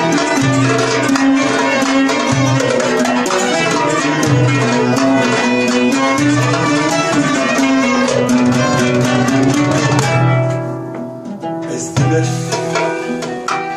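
Small Turkish ensemble of oud, violin, kanun and frame drum playing, the drum keeping a steady beat under the plucked and bowed melody. About ten seconds in the playing thins out and softens, then comes back in fully about two seconds later.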